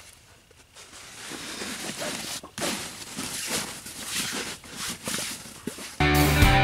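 Fabric rustling and soft knocks as the folding bottom board is laid into a collapsible wagon's fabric liner and pressed down by hand. Near the end, rock music with guitar cuts in abruptly and is louder than the handling.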